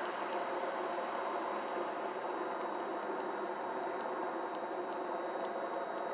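Steady vehicle noise at the roadside: an even hum and hiss with a few faint ticks.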